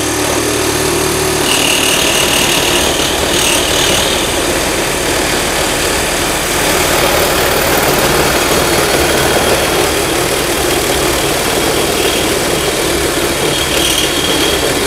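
Makita 40V max XGT cordless reciprocating saw cutting through square steel tubing, the blade running steadily through the metal and cutting quickly. A higher squeal rises over the cutting noise about two seconds in and again near the end.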